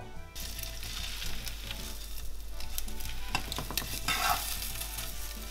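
Rolled bread slices sizzling as they fry in a non-stick frying pan, the sizzle coming up about half a second in, with a few clicks and scrapes of a metal fork against the pan about three to four seconds in as the rolls are turned.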